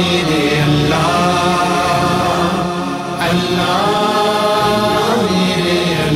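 Unaccompanied vocal chant of a hamd sung without a duff drum: held notes that slide from one pitch to the next, with no instruments or percussion.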